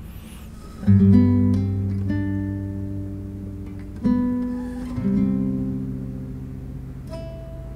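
Acoustic guitar background music: slow plucked chords, struck about a second in and again at about four and five seconds, each left to ring and fade.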